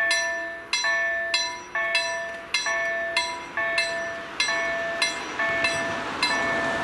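Level-crossing warning bell ringing in regular strikes, a little under one a second, with a faint steady hum beneath in the first three seconds as the barriers come down. From about five seconds in, the noise of an approaching train grows under the bell.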